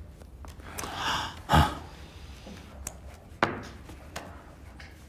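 A rustle about a second in, then a loud dull thump, with a sharper knock and a few light clicks later on.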